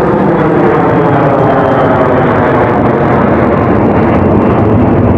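Jet airliner engines at takeoff, a loud continuous rushing noise with faint tones sliding slowly down in pitch as the aircraft moves past.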